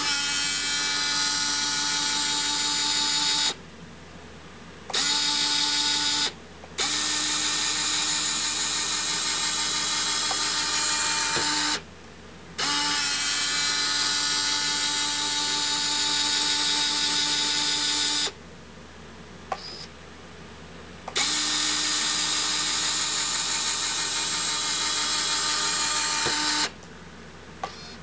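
Small geared electric lift motor of a 1/14-scale RC dump truck raising and lowering the dump bed. It runs as a steady, drill-like whine in five runs of a few seconds each, with short pauses between them.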